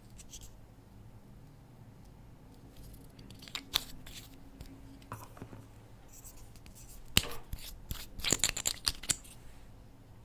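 Slime being handled and squeezed, giving off scattered crisp clicks and crackles, with one sharp click about a third of the way in and a quick cluster of pops near the end.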